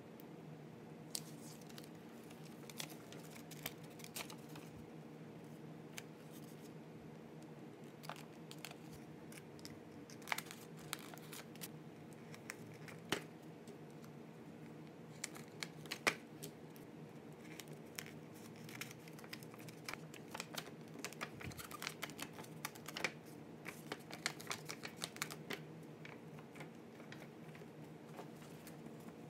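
Sheet of paper handled and folded by hand along its creases: soft rustling and crinkling with many scattered sharp crackles and taps, busiest in the second half, over a faint steady low hum.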